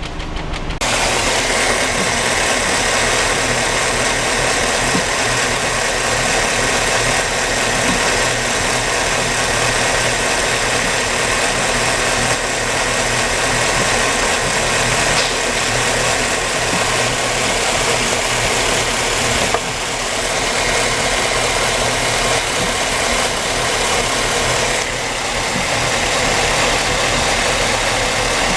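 Car engine idling with an ignition misfire, heard close up with a steady hiss over the engine. The sound changes abruptly about a second in.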